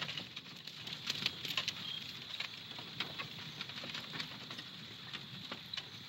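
Effects-only animated-film soundtrack: a scattering of light clicks and patters over a steady high hiss and a low rumble.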